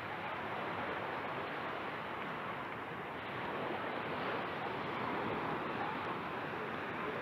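Small surf waves washing steadily onto a sandy shore, a continuous even rush with faint distant voices of people on the beach.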